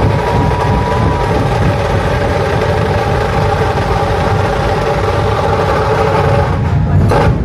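Dhol-tasha ensemble of many big barrel drums and tashas playing a fast, dense continuous roll, heard as a steady rumbling wall of drumming.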